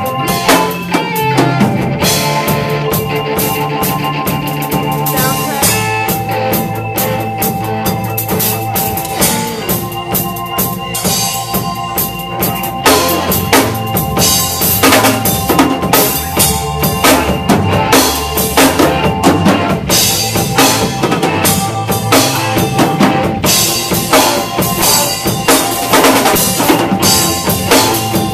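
Live band playing at a sound check: a drum kit with kick and snare hits over a bass line and held keyboard notes. The drumming gets busier about halfway through.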